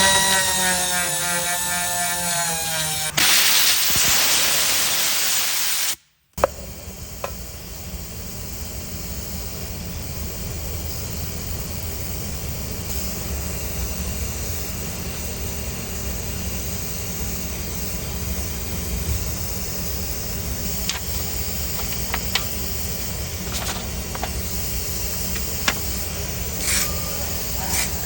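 Power tools working on a damaged car wheel rim. The first few seconds hold a high whine that falls in pitch as a tool winds down. After a brief cut there is a steady sanding noise with occasional clicks.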